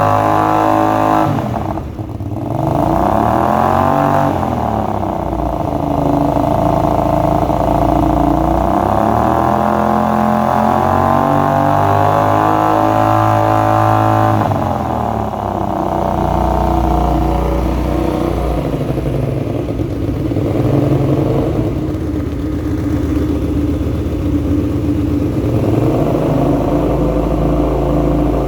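Kasinski Mirage 250 EFi's fuel-injected V-twin running through a Roncar Scorpion semi-direct exhaust tip, which is a partly baffled silencer with an internal packing. The engine dips and is revved up in the first few seconds and held high until about halfway, then drops back to lower revs with small blips of the throttle. The sound echoes in a closed shed.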